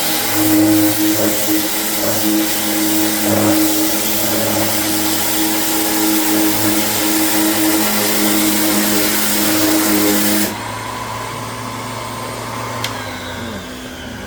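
Power sander running steadily on cured body filler, with a loud whirr and hiss, then switched off about ten seconds in. A quieter hum carries on, and near the end a faint whine falls in pitch.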